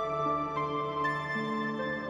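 Calm new-age background music: sustained, soft-edged notes, with a new note starting about every half second.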